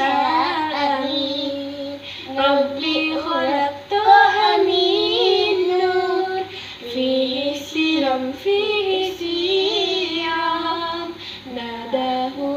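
A small girl and a woman singing a children's song together, holding and bending sung notes.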